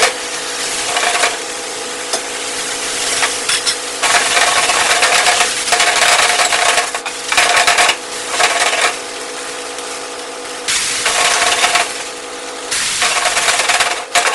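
Vegetables being tossed and stirred in a steel wok over a gas flame: scraping and rattling against the metal with frying sizzle, coming in loud spells about four, seven and eleven seconds in, over a steady hum.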